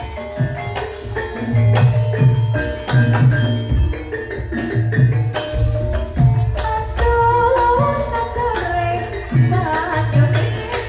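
Javanese gamelan accompaniment for a lengger dance: the kendang hand drum plays a steady pattern of deep strokes under ringing metallophone notes. A wavering melodic line, likely a sung part, joins in the second half.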